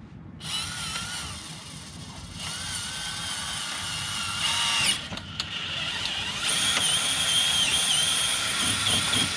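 Cordless drill boring holes up through an ATV's plastic skid plate. The motor's wavering whine starts about half a second in, stops briefly about halfway, then runs again, louder, through the second half.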